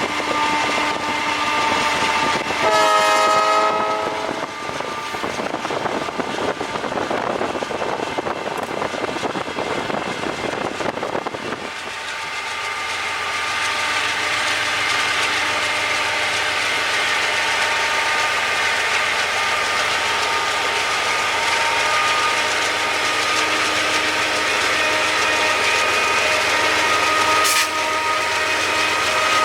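GE C36-7i diesel locomotive sounds a short horn blast about three seconds in, then passes with its engine and wheels loud. From about twelve seconds the empty freight cars roll by with steady rail clatter and a few faint ringing tones, and a sharp clank comes near the end.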